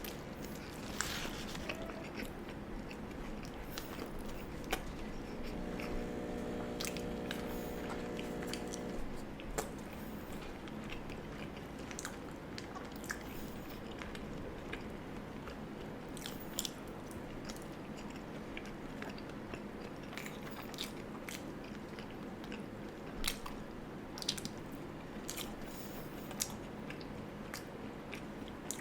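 Close-miked eating of a burger and fries: chewing and biting with many scattered sharp clicks of wet mouth sounds.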